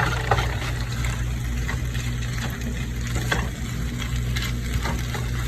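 Plant-based chicken and stir-fry vegetables sizzling and crackling in a frying pan, with a few short sharp clicks. A steady low hum runs underneath.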